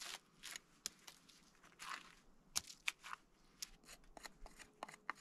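Knife blade scraping and shaving bark off a wet, freshly cut branch in a dozen or so short, irregular strokes, faint.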